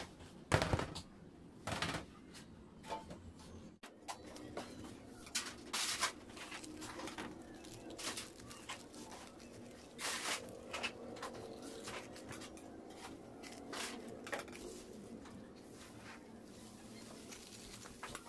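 Scattered light clicks and knocks of a metal knife and an aluminium baking tray being handled while a slab of baked macaroons is cut into pieces and lifted out.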